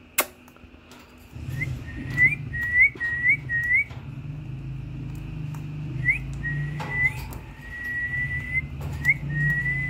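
Alexandrine parakeet whistling: a run of about five short whistles, each flicking up in pitch, then after a pause a few longer held whistles that rise at the end. A sharp click just after the start.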